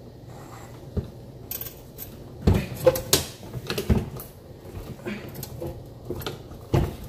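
Scattered knocks, clanks and rattles of dishwasher parts and metal being handled, a dozen or so irregular hits, loudest about two and a half and four seconds in.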